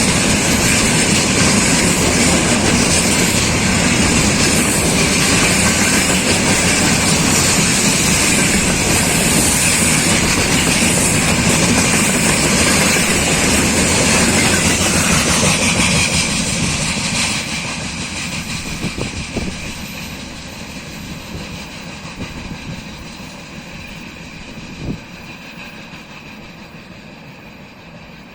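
Freight train wagons rolling past with the clickety-clack of wheels over rail joints. After about sixteen seconds the sound starts fading steadily as the end of the train draws away, and one short sharp knock comes near the end.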